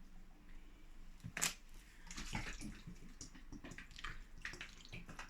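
Water poured onto freshly sown soil in a planter, splashing and trickling unevenly, with a sharper splash about one and a half seconds in.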